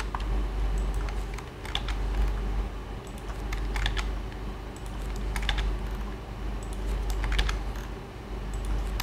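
Computer keyboard keys clicking in short clusters of a few presses, a second or two apart, over a steady low hum.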